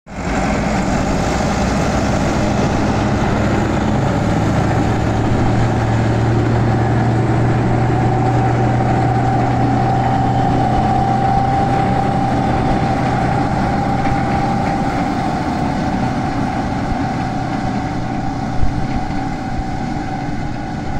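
Massey Ferguson 385 tractor engine running steadily under load while driving a tractor-mounted straw chopper through wheat stubble, with a steady whine over the engine note that is strongest midway. One sharp knock sounds near the end.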